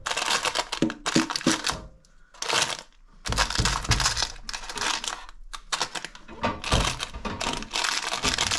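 Silicone spatula scraping and knocking against a nonstick air fryer basket while pastry pinwheels are turned over on crinkling parchment paper: a string of irregular scrapes, rustles and clicks, with a short pause about two seconds in.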